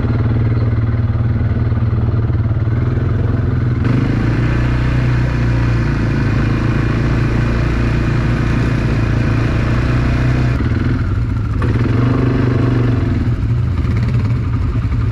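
Small vehicle engine running steadily and loudly, its note shifting briefly about eleven seconds in.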